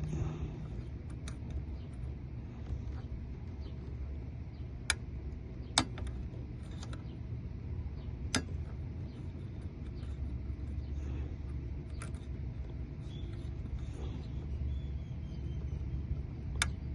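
A handful of sharp, widely spaced metallic clicks from a lock pick working the Subaru Outback's door lock as the pins are set, over a steady low rumble.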